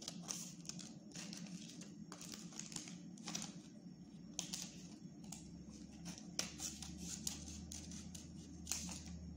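Scissors snipping through several layers of folded paper in short, irregular cuts, with the paper rustling as it is turned in the hand.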